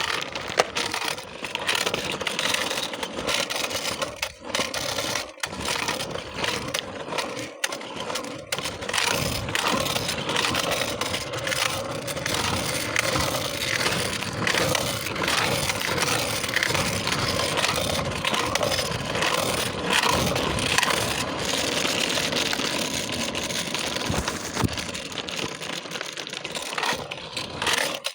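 Scooter wheels rolling over rough ground: a continuous crunching, scraping rattle with many small clicks and knocks.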